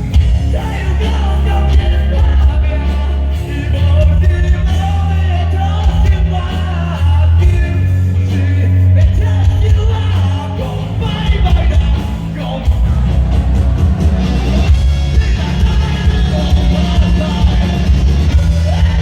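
Live band playing a loud rock song with a singer, heavy bass and drums, amplified through a concert sound system.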